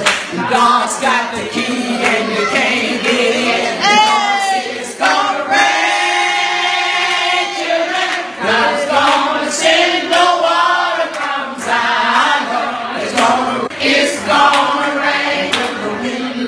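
Elderly woman singing a gospel song live into a handheld microphone, with other voices joining in and hands clapping on the beat about once a second.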